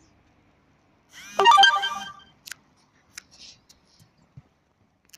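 A short electronic jingle of quick stepped notes lasting about a second, starting about a second in, followed by a few faint clicks.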